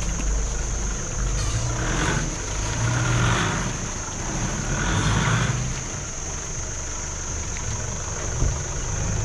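Four-wheel-drive vehicle's engine running at low revs, rising briefly three times, about two, three and five seconds in. A steady high-pitched whine runs underneath.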